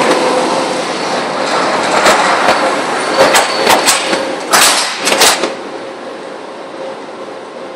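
Steady mechanical running noise with a faint hum that slowly fades, and a series of sharp knocks and clatters between about two and five and a half seconds in.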